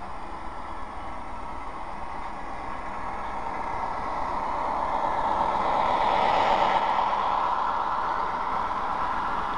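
Model diesel locomotive and freight cars rolling past on the track, a steady running and rolling noise. It grows louder as the train approaches and is loudest about six to seven seconds in, as the cars pass right by, then eases a little.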